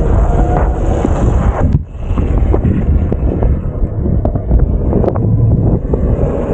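Wind buffeting the microphone of a moving e-bike rider, a loud steady rumble with scattered knocks and rattles from riding over rough ground. It eases off briefly a little under two seconds in.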